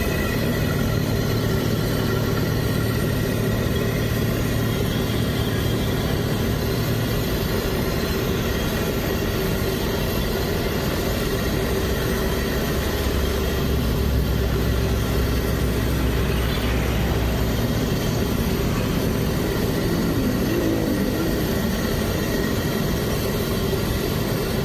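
Steady low engine hum over a continuous hiss, with the hum's pitch shifting a couple of times: a motor vehicle idling close by amid street traffic.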